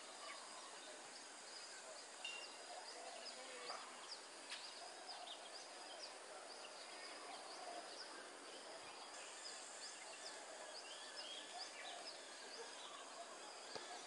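Faint outdoor nature ambience: a steady high insect hiss, with many short, high bird chirps scattered throughout and softer lower bird calls in the background.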